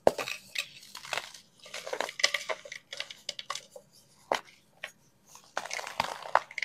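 Snowy white baking soda pucks being crushed, crumbling with crisp crackles and crunches in short bursts, the sharpest crack at the very start.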